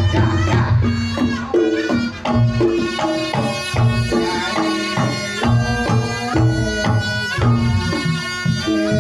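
Reog Ponorogo music, loud, with drums, tuned gong notes repeating in a steady rhythm and a reedy, shawm-like melody, played over a sound system.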